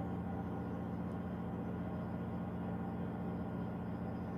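Steady low drone of marine diesel engines from a bulk carrier and its tugboats manoeuvring to berth: an even hum of several low tones that holds unchanged.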